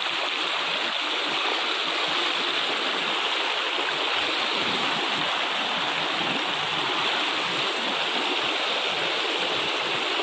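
Shallow, rocky stream running fast over stones: a steady, even rush of water.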